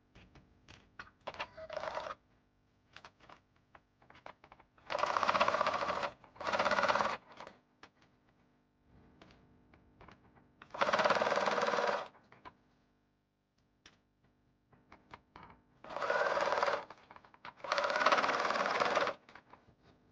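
Sewing machine stitching in five short runs of about one to one and a half seconds each, with small clicks and taps between the runs.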